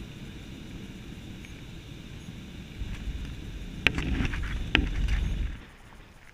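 Cabin noise of a Southwest Boeing 737 rolling on the runway: a steady rush that swells into a heavier low rumble about halfway through. Two sharp knocks come close together in the middle, then the sound drops away abruptly near the end.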